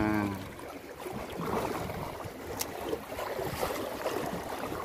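Sea water lapping against the rocks at the waterline, with wind on the microphone, and one sharp click about two and a half seconds in.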